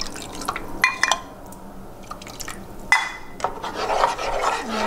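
Water poured from a measuring cup into thick peanut dipping sauce in a nonstick saucepan, with a few light clinks about a second in and a knock at about three seconds. Then a spoon stirring and scraping through the sauce to thin it.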